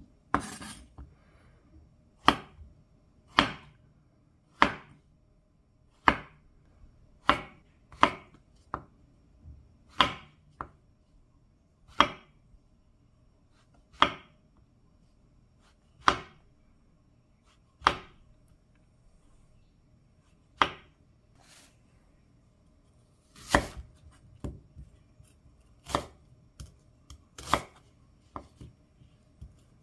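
Chef's knife slicing fresh shiitake mushrooms on a wooden cutting board: one sharp knock of the blade on the board every second or so. Toward the end the strokes come quicker as it moves on to cutting an onion.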